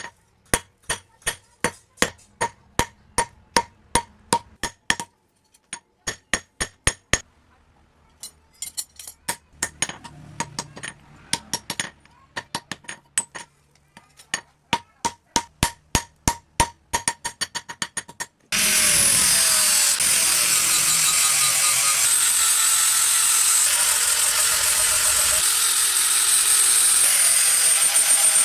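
Hammer blows on metal, striking the basula blade on the anvil, about three a second with a ringing note and a few short pauses. About two-thirds of the way through, a power grinder starts suddenly and runs steadily with a high whine.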